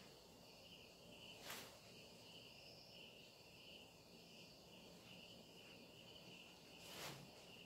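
Near silence with faint, steady cricket chirring, and two brief soft hissing sounds about a second and a half in and again near the end.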